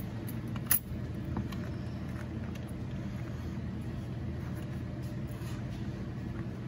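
A steady low mechanical hum, with one sharp click about three-quarters of a second in.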